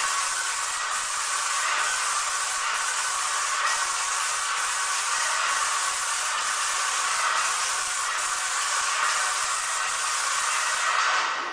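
Menegotti airless paint sprayer's gun spraying paint in a steady hiss, with a faint tick recurring about once a second; the spray cuts off at the very end.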